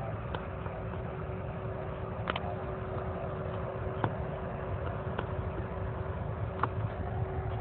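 Steady low outdoor rumble, likely wind on the phone's microphone, with a faint steady hum and a few light clicks of the phone being handled.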